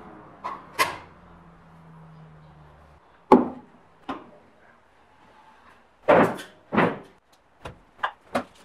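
Sharp knocks and clicks of hard plastic dust-extraction hose ends and pipe fittings being handled and pushed together, in a string of separate strikes: two light clicks at the start, a loud knock about three seconds in, two heavy knocks around six to seven seconds and a quick run of three near the end.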